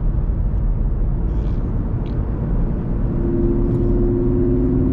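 2015 Chevrolet Camaro's V6 engine and road noise while driving, a steady low rumble. About three seconds in, a steady engine drone comes up over it.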